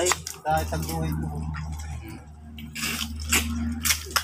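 Wet mud squelching and sucking in a few short splats as a blade and bare hands dig into a razor clam burrow in soft mangrove mud.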